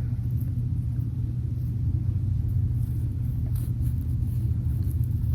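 Steady low background rumble, with a few faint rustles in the middle.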